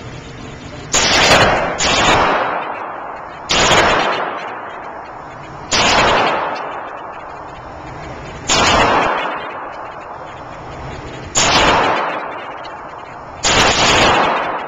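Seven semi-automatic pistol shots fired at uneven intervals about one to three seconds apart. Each sharp crack rings off the walls of an indoor range and dies away over about a second.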